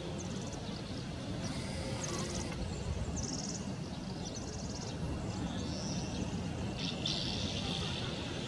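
House martins giving short, buzzy, trilled chirrups several times, the longest near the end, over a steady low rumble.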